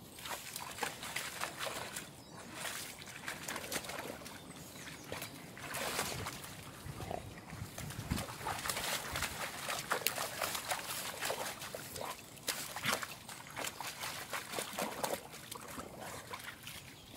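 Dog splashing and sloshing through a muddy puddle and shallow stream, pawing at the water, in irregular splashes with small clicks and trickles of water.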